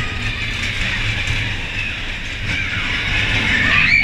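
Roller coaster train rumbling and clattering along its track, heard from on board. Riders start screaming near the end.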